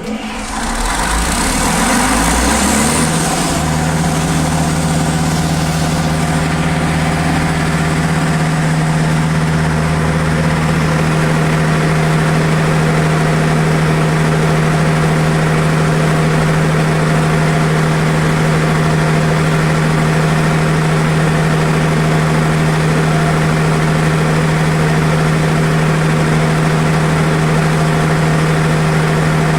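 Perkins diesel engine of a 760 kVA generator set coming up to speed just after starting, with a high hiss in the first few seconds. About three seconds in it settles into steady, even running at constant speed.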